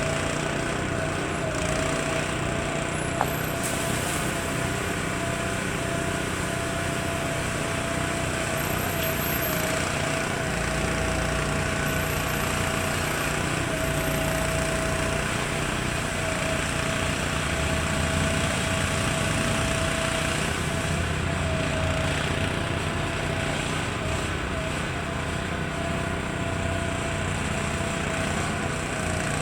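Federal Signal 3T22 outdoor warning siren sounding its steady alert tone, one held pitch that wavers slightly, over the hum of the siren's motor.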